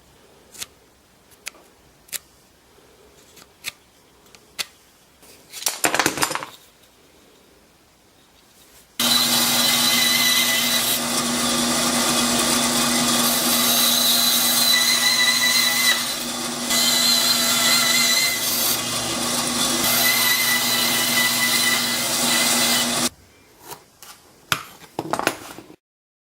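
Bandsaw running and cutting a wooden clamp jaw: a steady hum under a loud, hissy whirr for about fourteen seconds, stopping abruptly. Before it, a run of light clicks and knocks; after it, a few more knocks.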